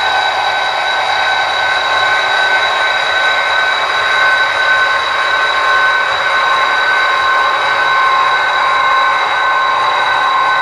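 HO-scale model freight train of tank cars rolling along the track, a steady running noise with a constant high hum.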